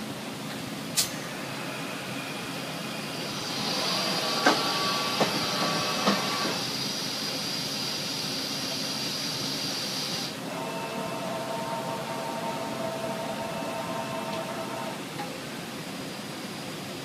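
Automatic pallet changer of a Makino MC65 horizontal machining center cycling. A sharp click, then about seven seconds of loud air hiss with three metallic clunks as the pallet unclamps and shifts, then a steady motor whine for about four seconds as the pallet moves.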